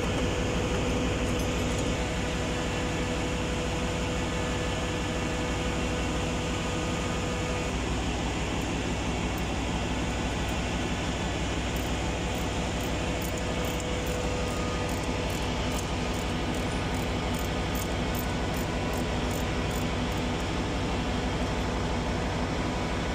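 Steady, loud ship's engine-room machinery noise: a constant dense drone with a steady hum. About halfway through, a run of faint, evenly spaced ticks comes in for several seconds as a spanner is worked on a pipe fitting.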